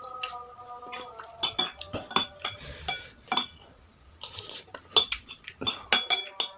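Metal cutlery clinking and scraping against a dish in a quick run of sharp clinks, with a short pause about two-thirds of the way through.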